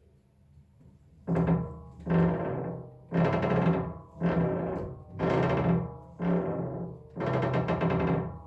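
Bosch WAT24440BY washing machine creaking as its drum turns: a pitched creak comes about once a second, starting a second or so in, and each one fades out within a second. The creak comes from a metal suspension spring rubbing on a dry plastic part between the spring and the machine housing, and greasing that part cures it.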